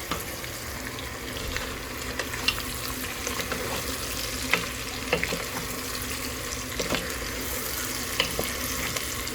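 Goat meat, boerewors sausage and vegetables frying in a pot with a steady sizzle, with scattered light clicks through it that fit a spoon knocking against the pot as the food is stirred.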